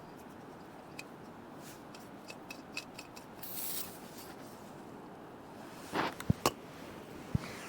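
Small clicks, rubs and knocks of gear being handled, with a short hiss about three and a half seconds in and a few sharper knocks near the end.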